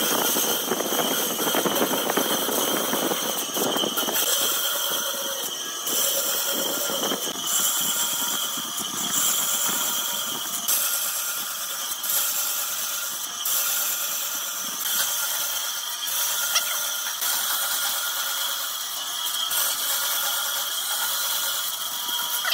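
A woodworking power tool running steadily, with a high whine over a hiss. It starts abruptly at the beginning.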